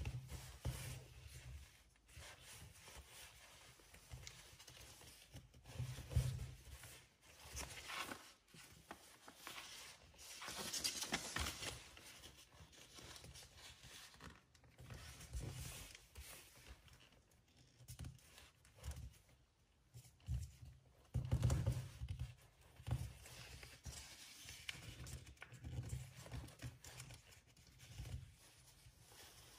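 A sheet of paper being folded and creased by hand: irregular rustles and crinkles, with soft dull knocks as the hands press the folds down on a board beneath.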